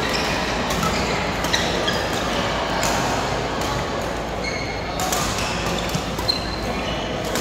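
Badminton rallies in a large indoor hall: sharp racket-on-shuttlecock knocks every second or so, with short high squeaks of shoes on the court mats. Under them runs a steady, echoing din of voices and play from the other courts.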